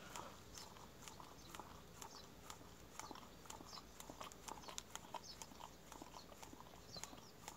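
Faint, irregular wet clicks of a Jindo dog licking ice cream from a small plastic cup.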